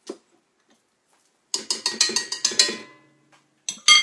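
Quick metallic taps and clinks with a short ringing tone from a stand mixer's wire whisk and stainless steel bowl as the whisk is taken off: a run of about eight fast taps, then a shorter cluster near the end.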